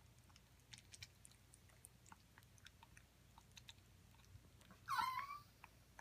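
African grey parrot biting and chewing into an orange slice: faint, scattered small clicks and crunches from its beak. About five seconds in comes a louder, short wavering squeak.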